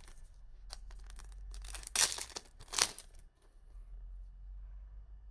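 Trading card booster pack wrapper being torn open: light crinkling, then two loud rips about two and three seconds in.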